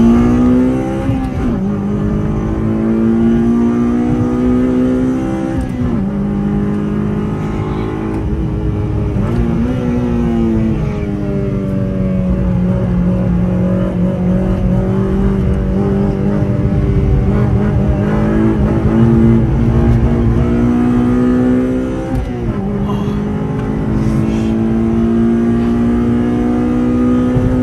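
Honda Civic Type R FD2's K20 two-litre four-cylinder engine heard from inside the cabin at racing speed, its pitch climbing through each gear and dropping sharply at the shifts and lifts for corners, over steady road and tyre noise.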